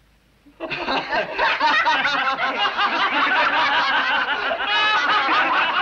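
A crowd of young men and women bursting into loud laughter together about half a second in, many voices laughing at once.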